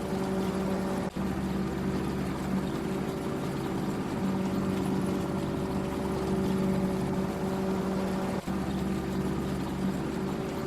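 Farm machinery engine running steadily at a constant speed, with a brief drop-out about a second in and another near the end.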